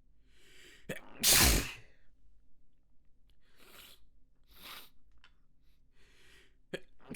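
A person in a sneezing fit: one loud sneeze about a second in, two quieter breathy sounds, then the next sneeze beginning right at the end.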